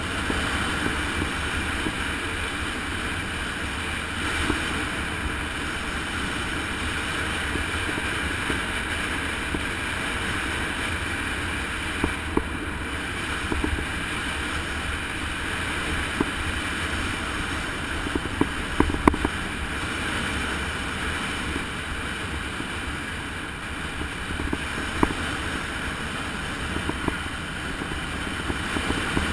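Steady wind rushing over the microphone during a fast downhill run on a mountain road, with a few short sharp clicks and knocks here and there.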